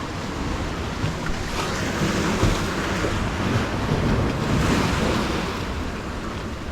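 Sea surf washing against a rocky shore, swelling louder in the middle and easing toward the end, with wind buffeting the microphone.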